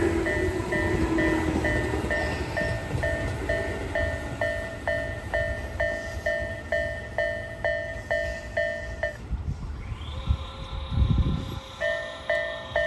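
Japanese level-crossing warning bell, the electronic 'kan-kan', dinging about twice a second over the low rumble of a train. The dinging stops about nine seconds in. A steady high tone and a low thud follow, and the bell starts again near the end.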